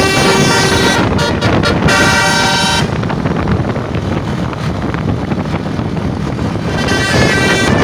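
A tour bus's multi-tone 'telolet basuri' musical horn playing a tune in stepped notes, with a few short breaks. It stops after about three seconds, leaving a steady rumbling noise, and starts playing again near the end.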